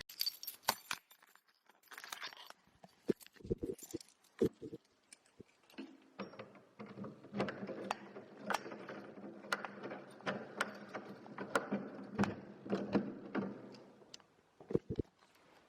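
Keys jangling amid a string of sharp clicks and knocks, with a steady low hum under them through the middle stretch.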